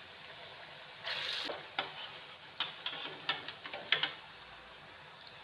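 Chana dal batuk fritters frying in hot oil with a low steady sizzle. About a second in comes a brief louder hiss, followed by a string of short clicks from a utensil knocking against the frying pan as the fritters are handled.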